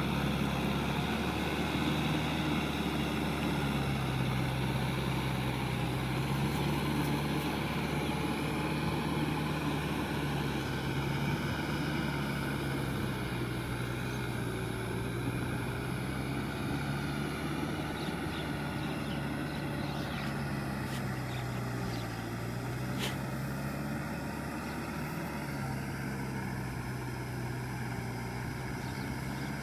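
Kubota M6040SU tractor's diesel engine running steadily under load as it pulls a rotary tiller through flooded paddy mud. It fades slowly as the tractor moves away.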